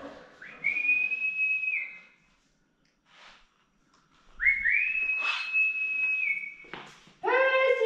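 Someone whistling two long notes, each sliding up and then held steady at a high pitch; the second is longer and steps down slightly near its end.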